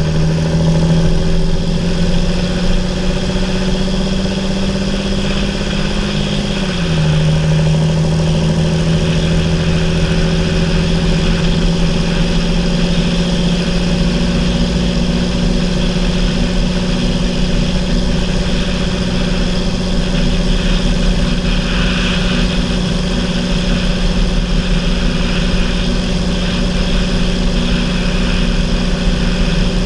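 John Deere 8430 tractor's six-cylinder diesel engine running steadily on the road, heard close over the hood. The engine note shifts once about seven seconds in, then holds steady.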